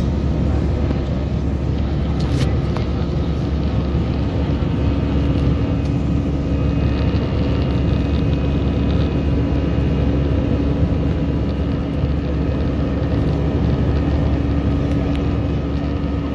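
Steady engine and airflow roar inside the cabin of an Airbus A319 jet airliner in flight, heard beside the engine. A steady hum joins in about five seconds in.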